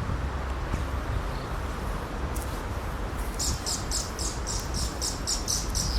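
Tawny-flanked prinia calling: a fast run of short, high, repeated notes, about five a second, starting about halfway through.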